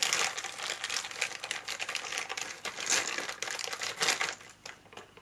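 Clear plastic bag crinkling and rustling as it is handled and pulled open, a dense crackle that thins out and stops near the end.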